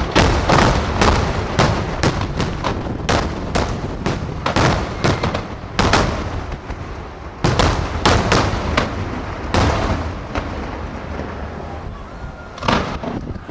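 Fireworks display: a rapid run of shell bursts, several bangs a second, that thins out after about ten seconds, with one more bang near the end.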